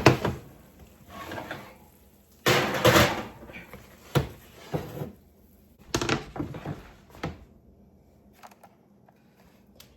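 Oven door and metal baking pans being handled as pans are swapped in the oven: a series of knocks and clatters over the first seven seconds or so, then quieter.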